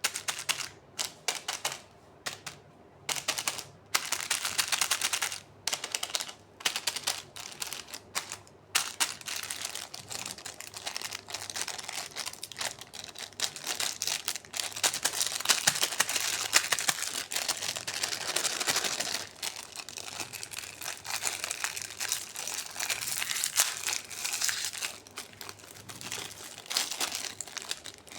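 Plastic candy wrappers crinkling and crackling: short separate bursts for the first several seconds, then almost continuous crinkling from about a third of the way in.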